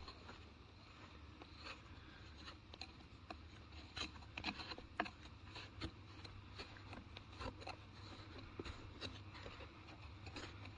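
Fingers digging and scraping through loose sand and grit in a rock pocket: faint scraping with many small, scattered clicks.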